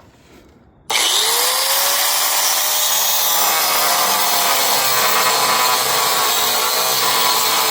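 Electric power cutting tool spinning up about a second in, then running steadily as it cuts through the steel exhaust pipe at a weld.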